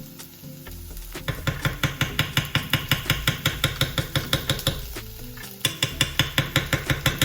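Hand whisking in a bowl: a utensil strikes the bowl in fast, even strokes, about five a second, in two bouts with a short break about five seconds in.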